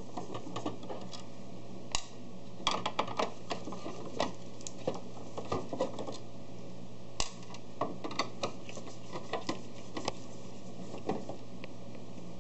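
Small screws being unscrewed from the sheet-metal scanner (CCD) carriage of a Sharp AL copier: irregular sharp clicks and ticks of the screwdriver and screws on metal, with a cluster about three seconds in. A steady low hum runs underneath.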